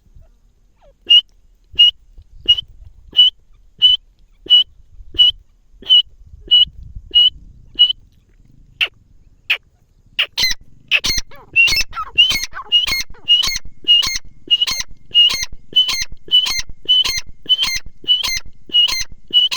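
Grey francolin calling: a run of single shrill notes repeated about one and a half times a second, then, after a short pause, a louder, faster series of fuller, ringing calls about twice a second.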